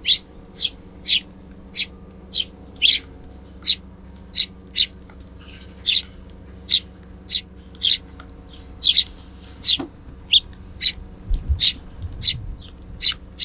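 Sparrows chirping in a steady run of short, sharp, high chirps, about two a second.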